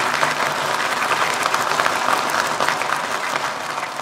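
Sliced vegetables sizzling in a hot wok with oil as they are stir-fried and tossed, a dense steady crackle.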